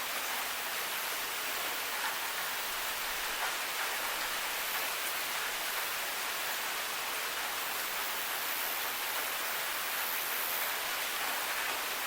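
Steady rain falling, an even hiss of drops pattering on hard surfaces with no change in strength.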